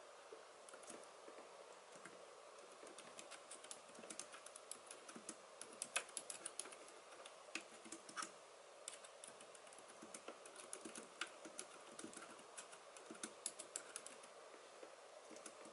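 Typing on a Logitech K380 Bluetooth keyboard's round, low-profile keys: faint, quick runs of key clicks with short pauses between them, a few scattered clicks at first and then steady typing from about three seconds in.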